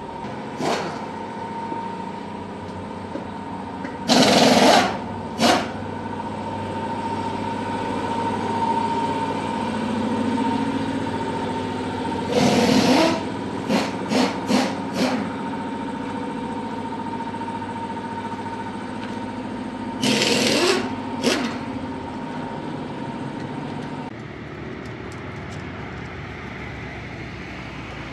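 A motor runs steadily with a held whine, broken by several short, loud bursts of noise, some single and one a quick run of four or five. The steady hum and whine cut off about four-fifths of the way through.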